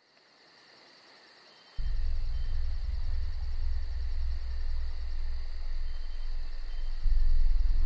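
Intro sound effect for a title card: a high, evenly repeating chirping pulse over a faint hiss, joined about two seconds in by a sudden deep low rumble that gets louder again near the end.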